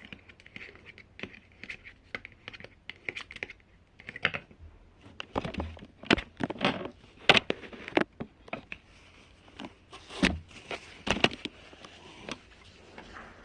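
Irregular handling noises: crinkling, scraping and sharp clicks, as things are handled close to the microphone. They grow louder about five seconds in, with another louder cluster near the end.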